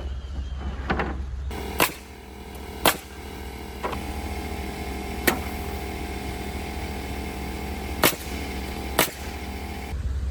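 Nail gun firing six single sharp shots at irregular spacing, fastening 1x4 roof decking boards, over the steady hum of a running motor.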